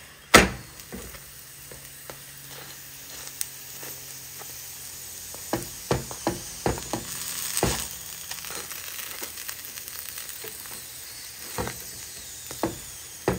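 Aloo paratha frying on a hot tawa: a steady sizzle with scattered sharp clicks, the loudest about half a second in and a cluster of them in the middle.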